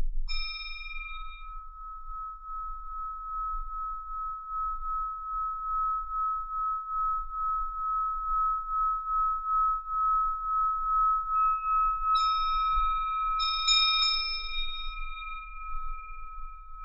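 Handheld Tibetan singing bowl struck once, then sung by circling a mallet around its rim. It gives one steady ringing tone that grows louder and pulses in slow waves. Near the end, a few brighter, higher strikes ring out over the sustained tone.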